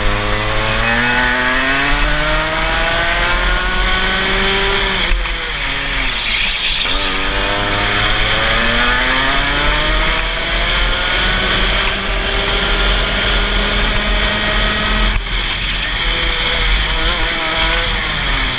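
Rotax two-stroke kart engine at racing speed, its revs climbing steadily under full throttle. The revs fall sharply off the throttle for corners about five seconds in and again about fifteen seconds in, then climb again each time.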